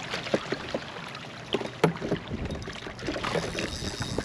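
Choppy water lapping against a kayak's hull, with a few light knocks and one sharper click nearly two seconds in.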